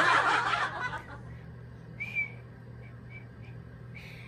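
Whistling: a loud breathy blow that fades by about a second in, then two short high whistled notes about two seconds apart, the second falling slightly in pitch.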